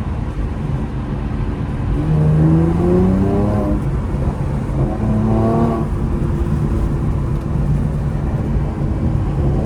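Car engine accelerating in its Sport Plus drive mode: two runs of rising engine pitch, about two seconds in and again about five seconds in, over a steady road rumble.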